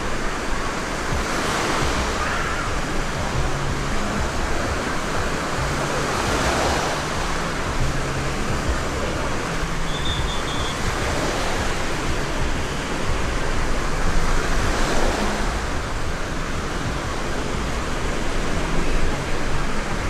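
Small sea waves breaking and washing up a sandy shore: a steady rush of surf that swells louder every few seconds as a wave comes in.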